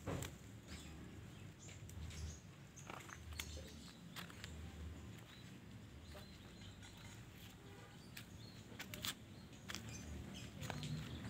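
Quiet outdoor background with scattered small clicks and soft low thumps from someone walking among the plants and handling a phone.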